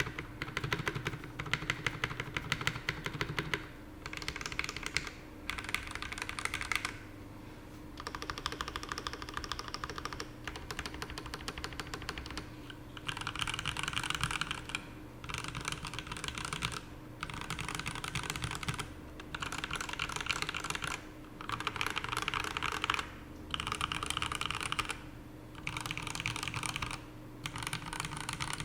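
Mechanical keyboard with TTC Red Eye switches, a carbon fiber plate and PBT keycaps being typed on fast. The keystrokes come in runs of one to three seconds with short pauses between, and the room gives them an echo.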